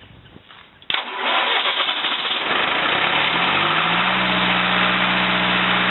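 Onan 30 kW generator's Ford industrial diesel engine starting: it comes in suddenly about a second in, climbs in pitch as it runs up to speed, and settles into a steady run about three seconds later.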